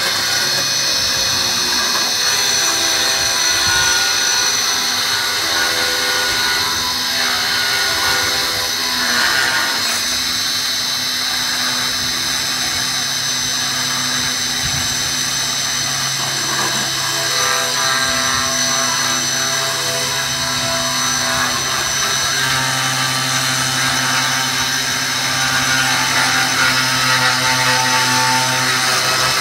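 Homemade CNC router engraving fibreboard: the spindle runs with a steady high whine as the bit cuts the groove. Beneath it, lower hums from the axis motors switch on and off and change pitch every few seconds as the machine moves along the path.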